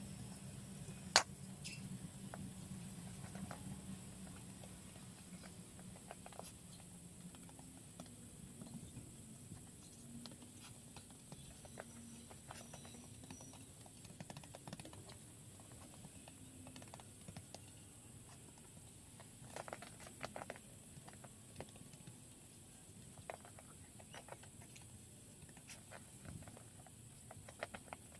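Faint, scattered crunches and pats of snow being packed and smoothed by hand onto a snowman, with one sharp click about a second in.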